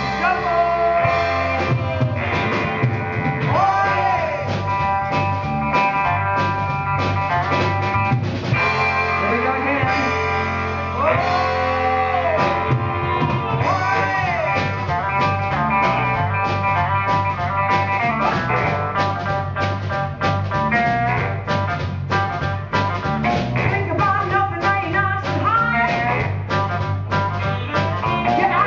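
A live band playing an upbeat soul-funk number: saxophone lines over electric bass and a drum kit keeping a steady beat.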